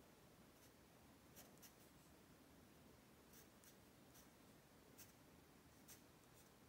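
Faint pencil strokes on paper: a scattering of short, light scratches over near-silent room tone.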